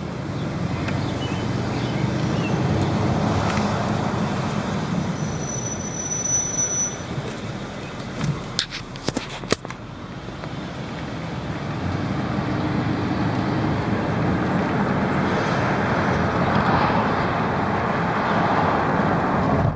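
Cabin and road noise of a 2013 Mercedes-Benz S550 driving, with a high-pitched brake squeak held for about two seconds a quarter of the way in: abnormal brake noise that comes on even under light braking. A few sharp clicks come just before the halfway point.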